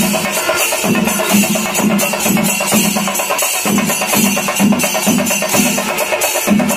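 Percussion music: drums and clashing cymbals playing a steady rhythm, with about two strong beats a second under a dense run of cymbal strokes.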